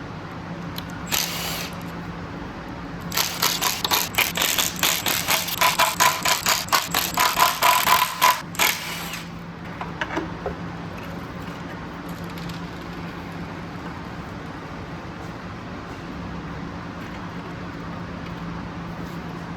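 A rapid run of sharp taps, roughly four or five a second, lasting about six seconds over a steady low hum, with a shorter burst about a second in.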